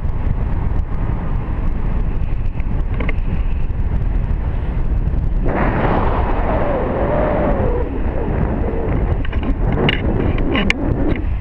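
Airflow of a tandem paraglider flight buffeting the action camera's microphone as a steady rushing noise, which grows louder and harsher about five and a half seconds in. A few sharp clicks come near the end.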